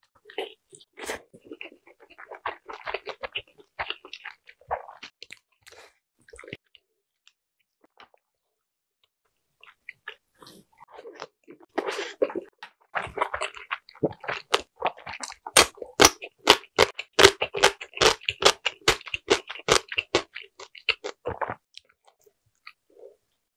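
Close-miked chewing and crunching of crisp-skinned Korean dumplings (mandu), in two spells: a short one at the start, then, after a quiet pause of a few seconds, a longer and louder run of sharp, crunchy chews.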